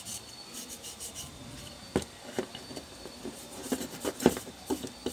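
Gloved hands handling and wiping a small plastic cooling fan: soft rubbing with scattered light clicks and taps, the sharpest about two seconds in and a little after four seconds in.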